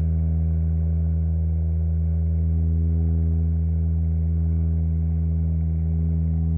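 Conch-shell horn (caragola) blown in one long, steady low note.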